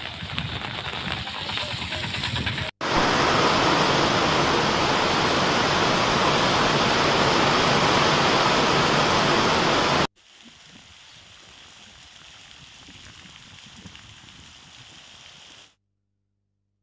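Rain and rushing water heard as a steady hiss, cut abruptly three times: a moderate hiss for under three seconds, then a much louder, steady heavy downpour for about seven seconds, then a fainter hiss that cuts off to silence near the end.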